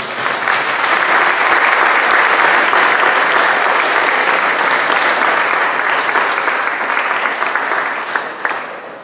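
A crowd applauding: dense clapping that swells within the first second, holds steady, then thins to a few last separate claps and fades near the end.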